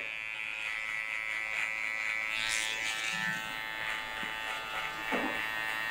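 Electric hair trimmer running with a steady buzz as it is worked across the back of the neck, clearing the small hairs along the neckline.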